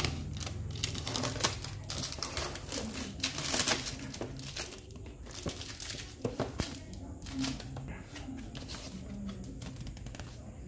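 Packing tape being cut with scissors and pulled from a cardboard box, then its flaps opened: a dense run of crinkling, tearing and scraping in the first few seconds, then sparser rustles and taps, with paper rustling near the end.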